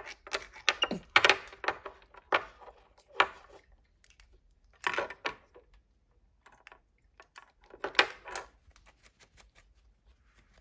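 Plastic clicks, knocks and rattles as a capuchin monkey handles a white plastic power strip and plug adapter on a wooden tabletop, in irregular bursts with quieter ticks between.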